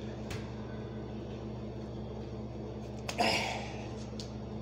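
Steady low room hum, with a click near the start and then a click and a short sharp breath from a man exercising with a medicine ball about three seconds in.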